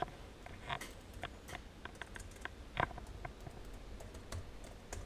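Laptop keyboard being typed on: scattered, irregular key clicks, with one louder tap a little past the middle.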